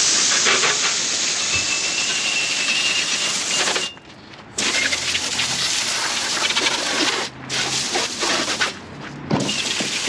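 Water spray from a hose nozzle hissing as it washes down a turf aerator. The spray cuts off for about half a second around four seconds in, then dips out briefly twice more near the end.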